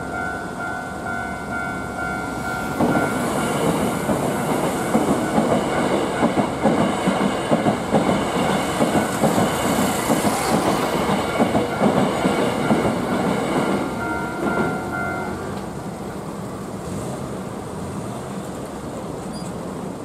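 Japanese level-crossing warning bell ringing steadily as a Hankyu Takarazuka Line train runs over the crossing. For about eleven seconds the wheels clatter rhythmically over the rail joints. The bell stops a little after the train has cleared the crossing, leaving street noise.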